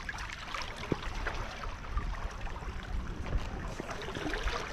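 Sea water sloshing and lapping against a stone breakwater: a steady wash dotted with many small crackles, over a low rumble.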